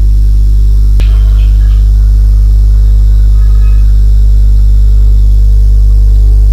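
Loud, steady low hum with a single sharp click about a second in.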